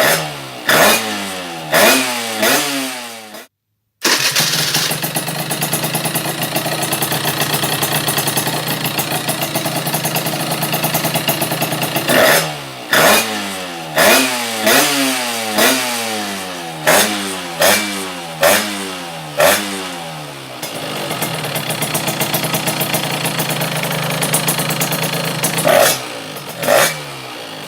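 85cc two-stroke dirt bike engine being blipped repeatedly, each rev climbing and falling quickly. In between it idles steadily. A run of about ten quick revs comes in the middle and two more come near the end, and the sound cuts out briefly a few seconds in.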